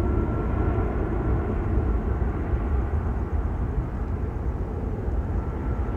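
Low rumble of a departing Airbus A320-232's IAE V2500 jet engines heard from a distance after takeoff, slowly fading, with a faint steady whine above it.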